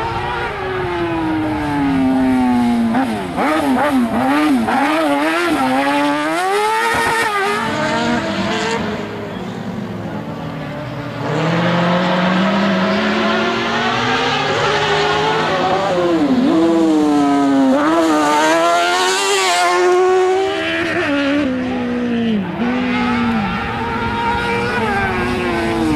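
Twin-engine Suzuki-powered autocross buggy racing on dirt, its engines revving high and dropping again and again through gear changes and corners. It grows fainter around ten seconds in, then comes back loud and close.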